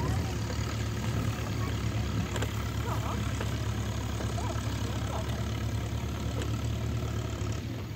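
A vehicle engine idling steadily, a continuous low hum.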